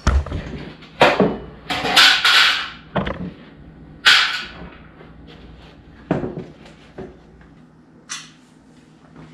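Car bumper parts being handled on a work surface: a plastic bumper and its mounting brackets being turned over and moved, giving several sharp knocks and clunks and two longer scrapes.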